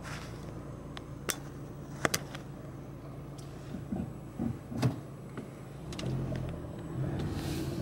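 Car running, heard from inside the cabin: a steady low hum with a few sharp clicks, growing somewhat louder about six seconds in.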